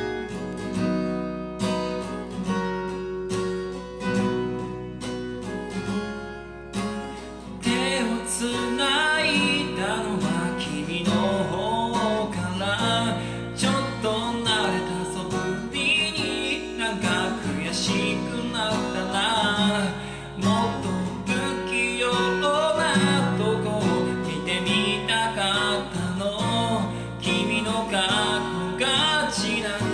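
Acoustic guitar being strummed alone, then a solo voice begins singing over it about eight seconds in.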